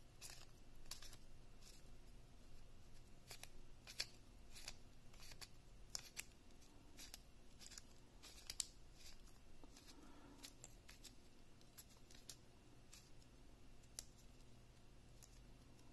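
QiYi 1x3x3 floppy cube being turned by hand, brand new out of the box: faint, irregular plastic clicks and snaps as its layers flip, about one or two a second. The turning is still sandy.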